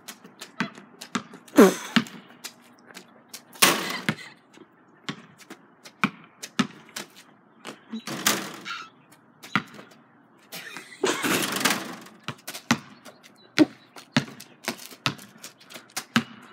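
Basketball dribbled on pavement: a run of sharp, irregular bounces, broken by a few longer noisy bursts, the longest about a second long past the middle.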